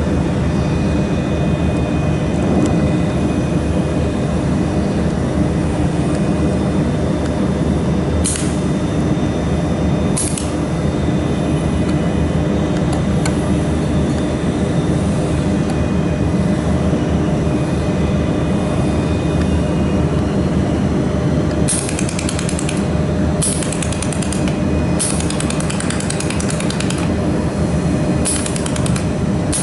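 Mould laser welding machine running with a steady mechanical hum. Short high-pitched hissing bursts come twice about a third of the way in, then several in quick succession near the end.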